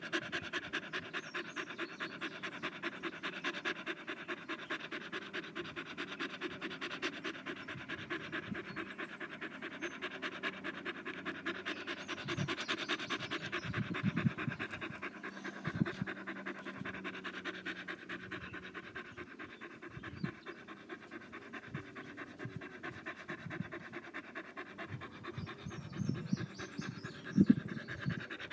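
A beagle panting fast and steadily with its mouth wide open, close to the microphone. A few louder low thumps break in near the middle and again near the end.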